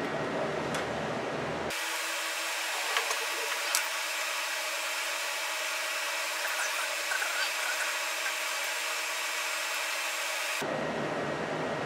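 Light clicks and rubbing as a plug and test probe are handled at a power inverter's outlet, over a steady hiss with a few faint steady tones. The hiss and tones begin abruptly a couple of seconds in and cut off shortly before the end.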